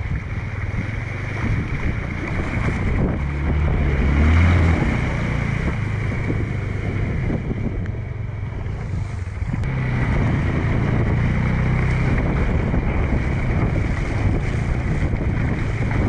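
Wind buffeting the microphone in gusts, over the steady rush of fast-flowing floodwater.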